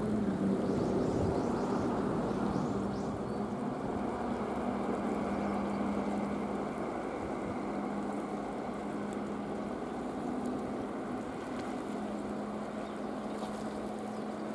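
A boat engine running with a steady hum that holds one pitch, over an even wash of noise.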